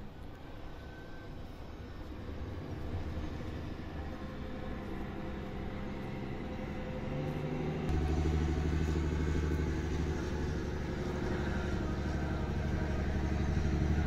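An engine running steadily with a low hum, getting louder about eight seconds in.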